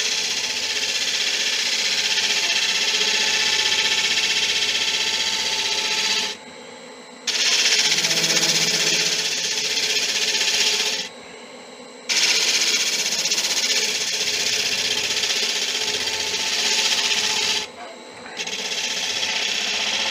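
A woodturning gouge cutting monkey puzzle wood on a spinning lathe makes a steady hissing cut. It breaks off three times for about a second as the tool leaves the wood, leaving the lathe running underneath.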